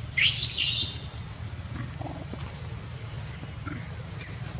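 A young long-tailed macaque screams shrilly for under a second as a bigger monkey grabs it, and gives a short, high squeak near the end.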